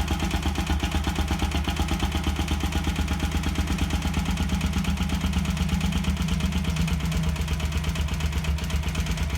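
Bajaj Rouser NS 200's single-cylinder engine idling steadily with a rapid, even pulsing and an ugly noise coming through the intake with the air filter cover fitted. It is intake noise, not a mechanical fault.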